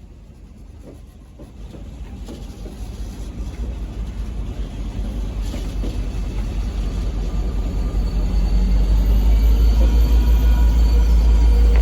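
V/Line N class diesel-electric locomotive running through the station, its engine and deep rumble growing steadily louder over the whole stretch, with faint steady whining tones coming in near the end.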